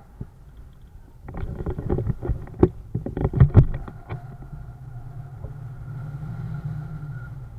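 Wind rumbling on the microphone, broken about a second in by some three seconds of sharp knocks and crackles, like wind buffeting and handling of the camera.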